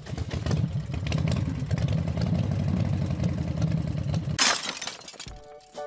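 Intro sound effect: a low rumble with dense crackling for about four seconds, ending in a sharp noisy burst, like something shattering or a whoosh, then dying away.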